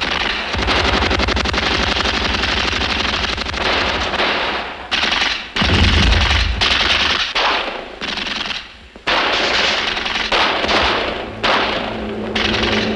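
Bursts of automatic machine-gun fire: a long rattling burst, then several shorter bursts with brief pauses between them.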